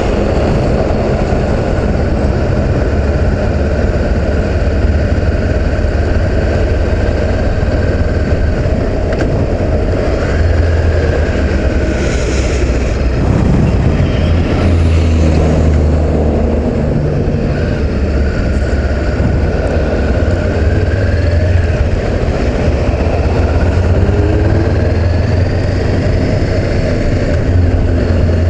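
Honda CB500X parallel-twin motorcycle engine running at cruising speed, with steady wind rush and road noise over the camera. Faint whines rise and fall a few times partway through.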